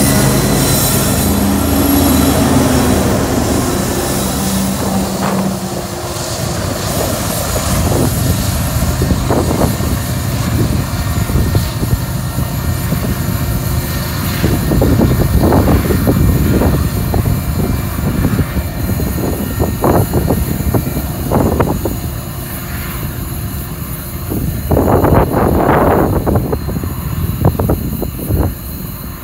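BNSF diesel locomotives passing close by with a steady engine drone and wheel noise on the rails, which fades over the first several seconds as the train moves away. Later come irregular low rumbling gusts of wind on the microphone, strongest near the end.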